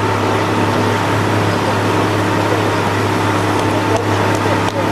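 A steady mechanical drone with a constant low hum and hiss, like a running motor, with one brief knock near the end.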